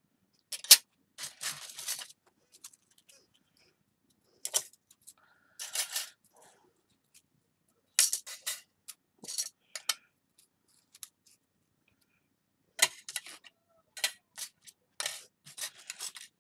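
Thin antique-bronze iron filigree pieces clinking and scraping against each other as they are picked up and set down while being sorted, in short irregular clatters every second or two.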